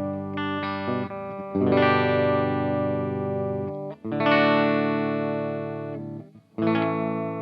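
Electric guitar played through the M-VAVE Mini Amp's clean Fender-style preset and the M-VAVE IR Box cabinet simulation. A few picked notes are followed by three strummed chords, each left to ring out and fade.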